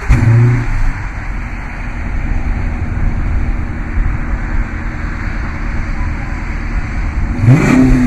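Dodge Charger Daytona's 5.7-litre HEMI V8 idling, with a short throttle blip right at the start and a quick rev near the end whose pitch climbs fast and then falls back to idle.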